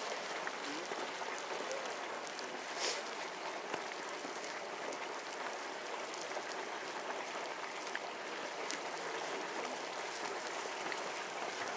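North Dwarf Geyser, a small perpetual spouter, splashing steadily as its low jet of water and steam plays. A brief sharp click about three seconds in.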